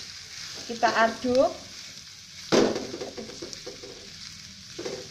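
Shredded young papaya sizzling in hot oil in a wok while a wooden spatula stirs and scrapes it, with one sharp knock against the pan about two and a half seconds in.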